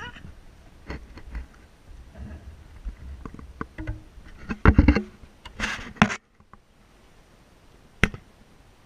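Handling noise from the camera being moved on a wire fence: rumbling and small knocks, then loud dull knocks and a burst of scraping about five seconds in that cuts off suddenly, followed by one sharp click about eight seconds in.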